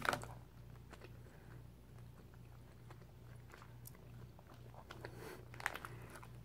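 Faint, wet mouth sounds of someone chewing a soft, liquid-filled Starburst Gummy Burst candy, over a low steady hum. Near the end there are a few louder rustles as the plastic candy bag is handled.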